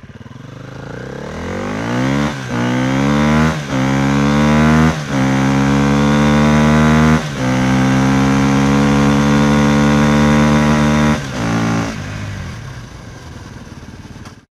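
Motorcycle engine accelerating up through the gears: the engine note climbs and dips briefly at four gear changes, then holds steady at speed. It then drops away and fades out near the end.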